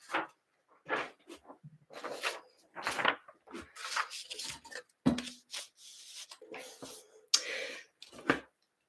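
Sheets of paper rustling and being rubbed flat against a display board by hand, in irregular bursts with a few light knocks.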